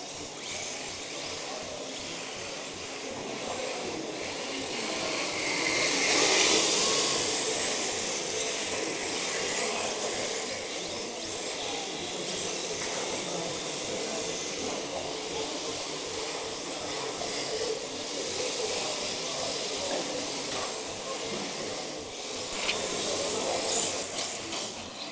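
1/10-scale radio-controlled drift cars running and sliding on a sports-hall floor, a steady motor whirr and tyre hiss that swells loudest about six seconds in.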